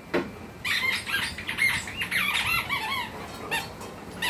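Puppies at play giving a rapid run of short, high-pitched yips and whines, with a single knock just after the start.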